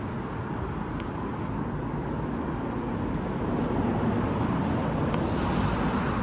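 Steady traffic noise from a city street, with a couple of faint ticks.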